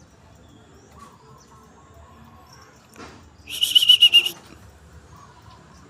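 Caged green leafbird (cucak hijau), fired up, giving one loud burst of rapid buzzy chattering, about eight quick notes in under a second, around the middle; softer faint notes before and after.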